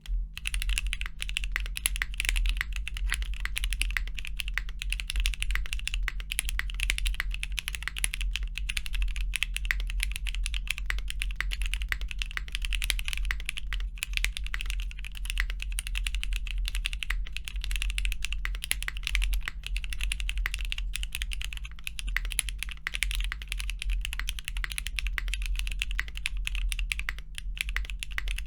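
Continuous typing on a custom mechanical keyboard with lubed, filmed and spring-swapped Cherry MX Black linear switches in a carbon fiber plate, no foam, and GMK keycaps. Dense, uneven key clacks, with a steady low hum underneath.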